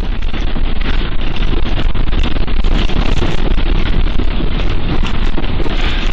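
Loud, steady rumbling noise with a heavy low end and fine crackling through it, in earthquake footage of the ground shaking.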